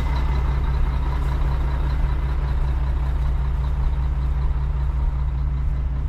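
CAT 279D compact track loader's diesel engine running steadily at an even, unchanging speed.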